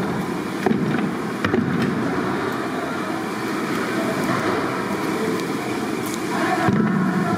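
A huge pot of chicken curry simmering over a wood fire while a long ladle stirs through it: a steady cooking noise with scattered sharp clicks.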